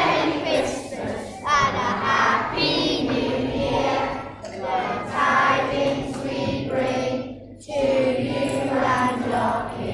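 A group of young children singing a song together in phrases, with short pauses between them.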